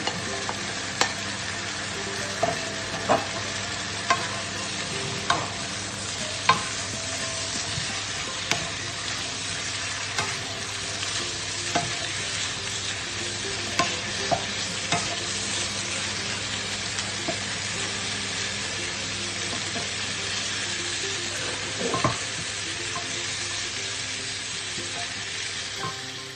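Chicken and freshly added vegetables (celery, string beans, carrots) sizzling as they are stir-fried in a frying pan, with a wooden spatula knocking and scraping against the pan about a dozen times at uneven intervals.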